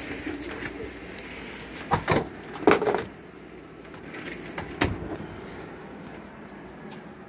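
A few short, sharp knocks about two, three and five seconds in, the loudest near three seconds, over a low steady background.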